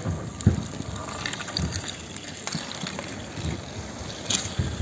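Inline skate wheels rolling and scraping on an asphalt court, a steady rushing noise, with a few sharp knocks from hockey sticks and the puck or ball; the loudest knock comes about half a second in.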